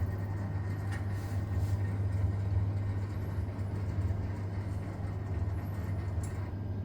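Vaillant VUW 202/2-3 R2 wall-hung gas boiler making a strange, steady low hum.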